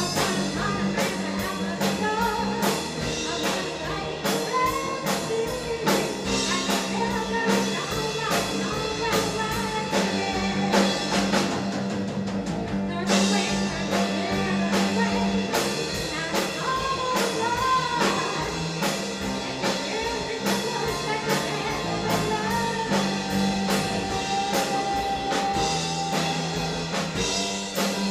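Live band playing a song: female lead vocal over keyboard, electric bass, electric guitar and a drum kit keeping a steady beat.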